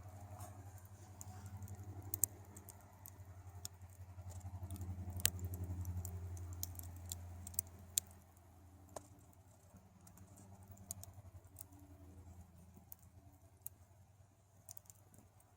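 Smoldering campfire crackling: scattered sharp pops and snaps, thinning out after about eight seconds, over a low rumble that swells and then fades.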